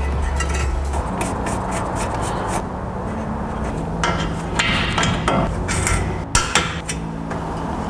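Hand-tool work on metal car parts: scattered clinks and knocks with rubbing and scraping, clustered a few seconds in and again near the end, over low sustained background tones.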